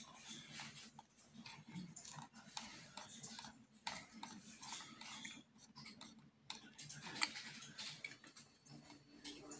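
Faint, irregular clicking and ticking from a computer mouse being scrolled and clicked.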